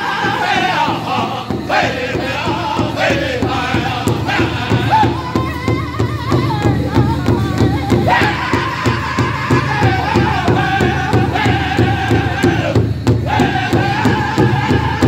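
Powwow drum group playing a Men's Chicken Dance song: several drummers strike one large shared drum in a steady beat while singing high-pitched in unison. The singing breaks off briefly about thirteen seconds in while the drumbeat carries on, then resumes.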